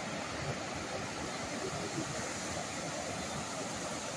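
Whitewater rapids of the Snoqualmie River rushing over and around boulders: a steady, even rush of water.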